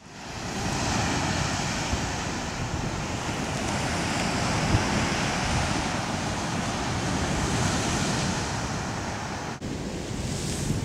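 Steady rushing of sea surf and wind, fading in at the start, with a brief drop in level near the end.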